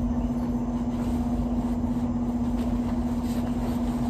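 A portable room appliance running with a steady hum and one constant low tone, with faint rustles and light clicks of items being handled in a fabric bag.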